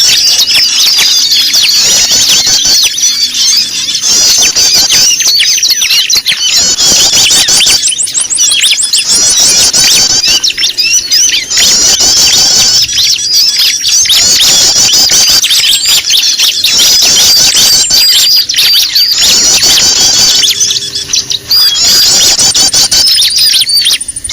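A loud, dense chorus of many small birds' chirps and squeaky calls overlapping without pause: a 'noisy birds' lure recording used to attract small birds.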